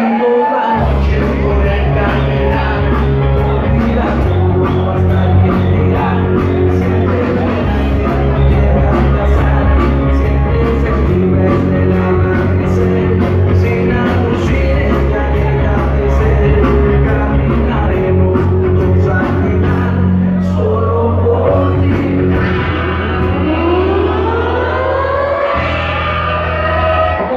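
Loud rock music with singing played over a sonidero sound system in a dance hall; a heavy bass line comes in about a second in. Near the end a sweeping effect rises through the mix.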